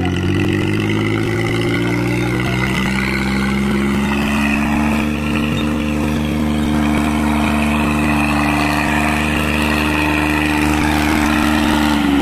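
Mahindra 265 DI tractor's three-cylinder diesel engine running under load as it pulls a disc harrow through the soil. Its pitch rises slightly over the first few seconds, then holds steady.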